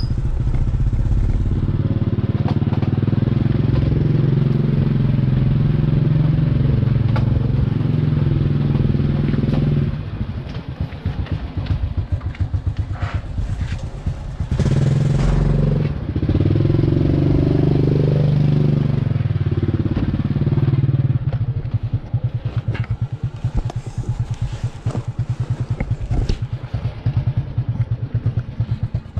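Motorbike engine running while riding. It holds a steady, stronger note for about the first ten seconds and again from about 15 to 21 seconds, and drops to a lower, pulsing note in between and towards the end as it eases off.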